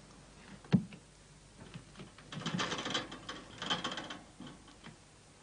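A single sharp click, then a couple of seconds of rustling and quick light rattling as a cloth is handled and drawn over a wire cage.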